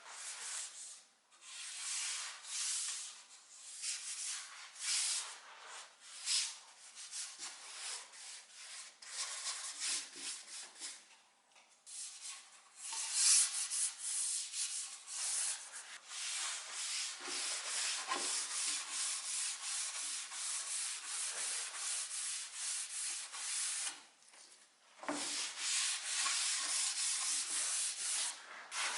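Wood being sanded by hand with sandpaper: repeated rubbing strokes, steadier in the middle, with a few short pauses.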